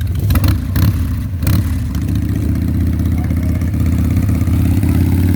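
Harley-Davidson V-twin motorcycle engine running steadily at the hill-climb start line, with a few sharp knocks in the first second and a half.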